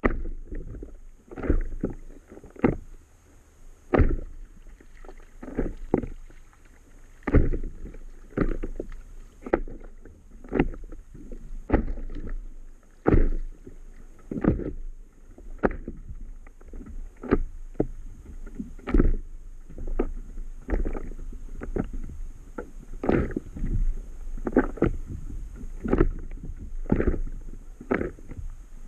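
Small waves slapping against the hull of an inflatable stand-up paddle board, short splashy knocks at an uneven pace of one or two a second.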